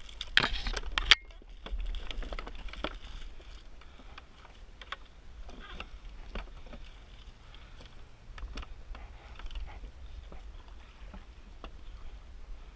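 Dry twigs, roots and grass rustling and scraping close to the microphone as they are pulled by hand, loudest in a burst about half a second in, then scattered light clicks and knocks over a low rumble.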